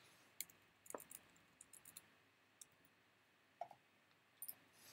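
Near silence broken by about ten faint, irregular clicks from a computer mouse and keyboard keys.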